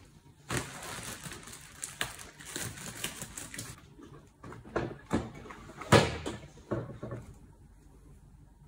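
Plastic wrap crackling and rustling as it is pulled off an ironing board, then a few hard knocks as the metal-framed board is handled, the loudest about six seconds in.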